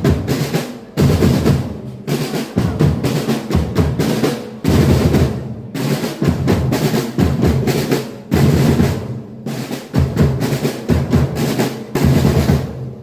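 Marching drum band percussion playing loudly: snare drums with rolls and bass drums in rhythmic phrases, broken by short breaks every second or two.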